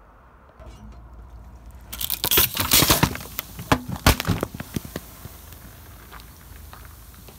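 Car tyre rolling over a pack of Mirinda soda bottles and crushing them: a low rumble, then a dense burst of loud crackling and cracking about two seconds in, a last sharp crack about four seconds in, and scattered fainter crackles after.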